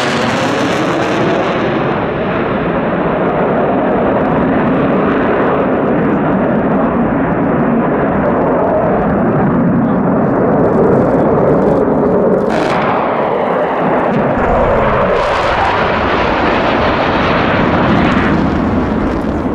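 Loud, steady jet engine noise from low-flying fighter jets, an F/A-18 Hornet among them, with a falling pitch sweep near the start as one passes. The sound changes abruptly about twelve and a half and fifteen seconds in.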